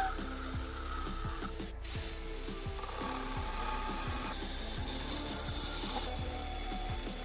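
Background music with a steady thumping beat, briefly cut about two seconds in and coming back with a rising swish.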